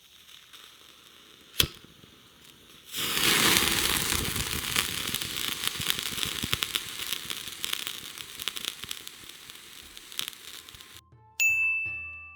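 Food sizzling and crackling on a hot miniature hibachi griddle, starting suddenly about three seconds in after a single sharp click and slowly dying down. Plucked-string background music comes in near the end.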